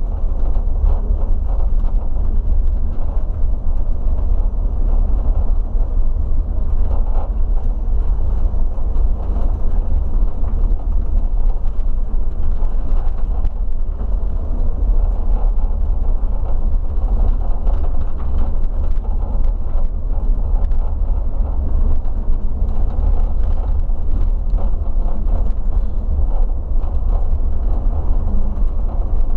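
Regional coach driving along, heard from the driver's seat: a steady engine and road rumble, deepest in the bass, with no sharp events.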